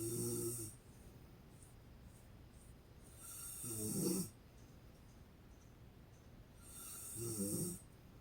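A woman snoring in her sleep: three loud snores about three and a half seconds apart, the first already under way at the start, each swelling for about a second and then cutting off sharply.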